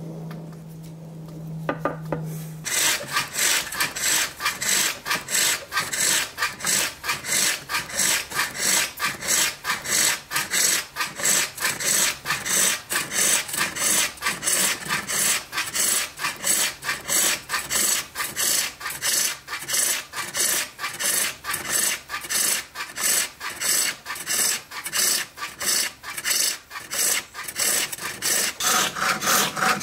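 Hook tool cutting a wooden bowl turning on a foot-powered pole lathe: a rhythmic scraping shave with each stroke of the lathe, about two strokes a second, starting about three seconds in after a brief steady low hum.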